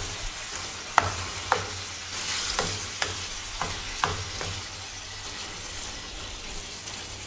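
Curry chicken sizzling and simmering in a frying pan while a black spoon stirs it. The spoon knocks against the pan several times in the first half.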